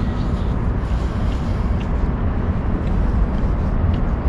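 Wind buffeting an outdoor camera microphone: a steady low rumble with a fainter hiss above it.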